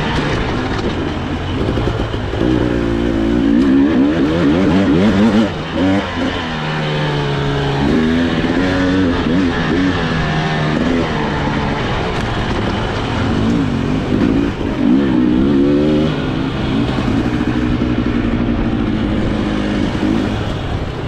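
Husqvarna TE300i two-stroke dirt bike engine being ridden hard, revving up and down repeatedly with the throttle, its pitch rising and falling every second or two.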